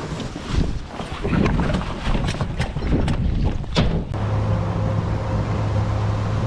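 Wind blowing across the microphone on an open boat, gusting unevenly with brief knocks and splashes. About four seconds in it cuts off suddenly to a steady low drone.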